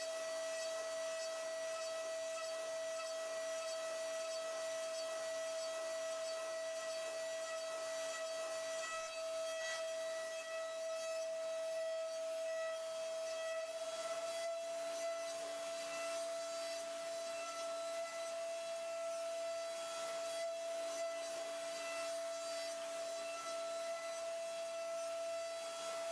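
DATRON M8Cube high-speed milling spindle whining at one steady pitch while the cutter machines the mold, with a rasping cutting hiss underneath.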